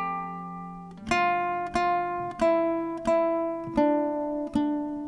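Acoustic guitar music: single chords struck about every two-thirds of a second, each ringing out before the next, with one longer ringing chord near the start.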